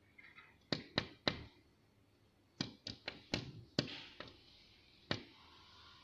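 A bulbul pecking its beak against window glass: sharp taps, three in quick succession about a second in, a quicker run of about six around three to four seconds in, and one more near the end.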